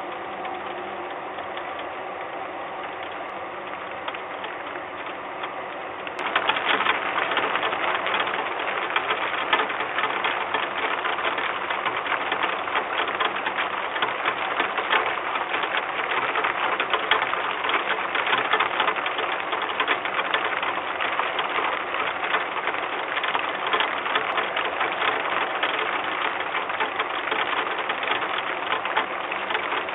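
Rain falling on a nest box, picked up by the box's camera microphone as a dense, fast pattering of drops; it grows clearly louder about six seconds in.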